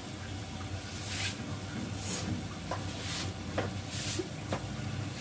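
Stir-fried vegetables in sauce sizzling in a pan over a gas flame: a steady low hum with short hissing bursts about once a second, and a few light clicks in the second half.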